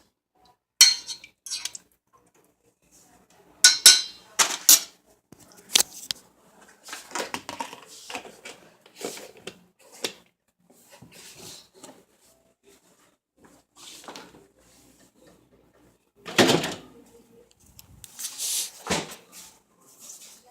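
Intermittent clatter of pots, pans and utensils being handled: scattered clinks and knocks, with a heavier knock about sixteen seconds in.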